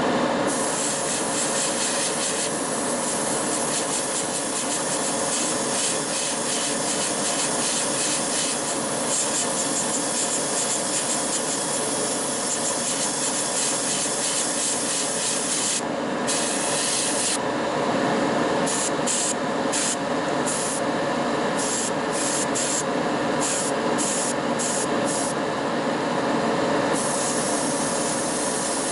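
Steady hiss of an airbrush spraying paint.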